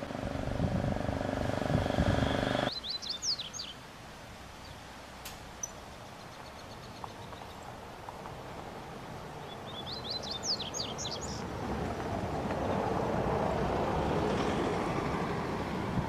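A low vehicle rumble that cuts off abruptly under three seconds in, then two short phrases of rapid, high twittering song from a yellow-bellied seedeater (coleiro baiano), the second about seven seconds after the first. A soft background hum swells near the end.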